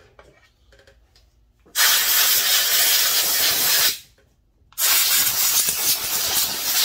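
Compressed-air blow gun hissing in two long blasts, the first starting about two seconds in and the second after a short pause.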